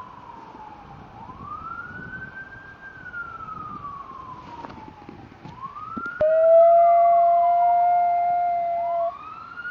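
An emergency-vehicle siren wails, rising and falling slowly. About six seconds in, a schnauzer joins with one long, steady howl lasting about three seconds, louder than the siren.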